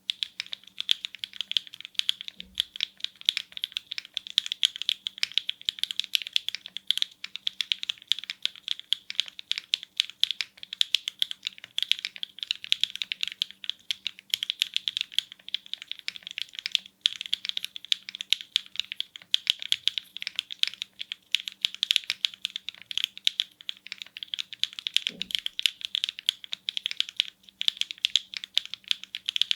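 Continuous fast typing on a Baldr65 glass-case 65% mechanical keyboard fitted with HMX Swift linear switches and KDS keycaps: a dense run of sharp, high-pitched keystroke clicks, with a couple of deeper thuds.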